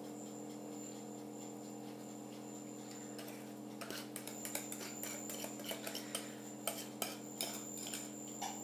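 A spatula scraping and tapping chocolate cake batter out of a glass mixing bowl into a baking dish. A run of irregular light clicks and scrapes starts about three seconds in, over a steady low hum.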